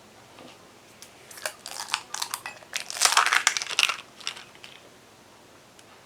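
A jar of chili sauce being opened and emptied into a slow cooker: a string of short clicks, scrapes and crinkling handling noises, busiest and loudest about three seconds in.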